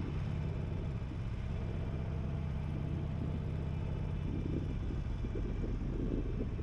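The air-cooled 1200 cc Evolution V-twin of a 2021 Harley-Davidson Sportster Forty-Eight running at a steady low note while the bike is ridden, with road noise.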